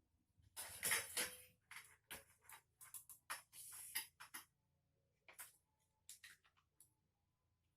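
Rustling and a run of light clicks and taps from small equipment being handled. The loudest rustle comes about a second in, and the taps thin out after about four and a half seconds.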